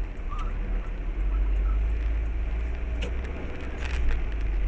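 Steady road and engine rumble of a car driving on a wet road, heard from inside the cabin through a dashcam microphone, with a few faint clicks about three and four seconds in.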